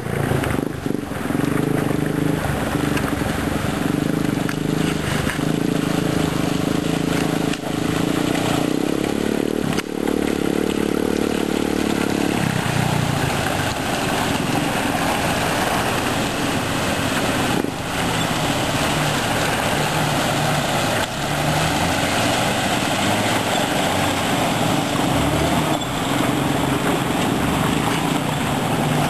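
Jeep Wrangler Rubicon engines running steadily as the Jeeps crawl along a muddy trail. The higher engine note drops away about halfway through, leaving a lower one.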